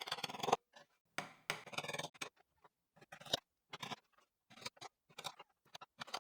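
Light hammer taps on small wire nails going into wood, in short irregular runs with pauses between them.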